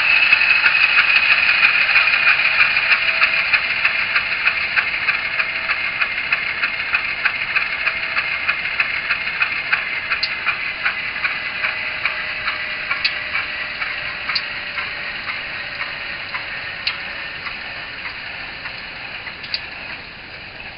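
Sound decoder of an HO scale GE U28C model diesel locomotive, heard through the model's small speaker, winding down: the engine's beat slows and fades while a faint whine slowly drops in pitch. A few sparse ticks come in the second half.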